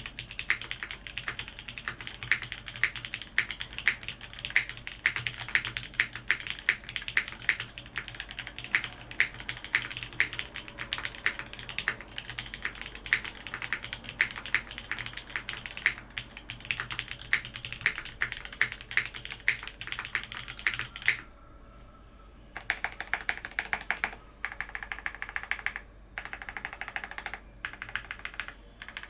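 Mechanical keyboard typed on quickly and steadily: a top-mounted TGR 910 65% board with lubed, filmed Cherry MX Retool Black linear switches on an aluminium plate, under GMK keycaps. About two-thirds of the way through the typing stops for a moment, then goes on in shorter bursts with brief gaps.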